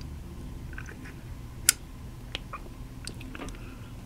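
Small handling clicks and taps from a lever-fill fountain pen being filled: fingers work its metal filling lever while the pen sits in a glass ink bottle. One sharp click about a third of the way in, a few fainter ones after, over a low steady hum.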